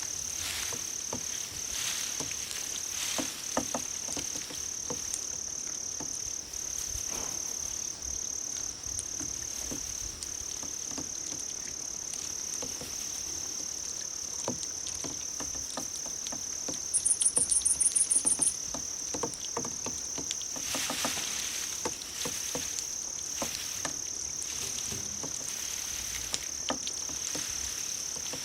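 Grass insects calling: a steady, high-pitched trill with short regular breaks, with a quick run of even higher rapid pulses from another insect about two-thirds of the way through. Faint light clicks and patter sound underneath.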